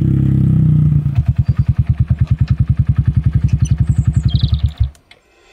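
A small motorcycle engine runs steadily, then settles about a second in to an even putter of about eleven beats a second. Near the end it cuts off suddenly as the engine is switched off.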